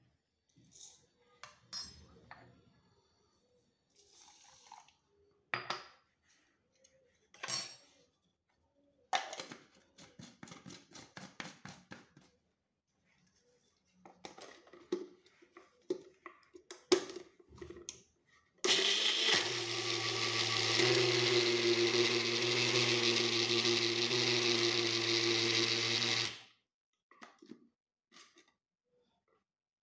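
Spoon clinks and taps against a small jar as ingredients are spooned in. Then, about 19 seconds in, an electric mixer grinder runs steadily for about seven seconds and stops suddenly; it is whipping coffee powder, sugar and a little hot water into froth.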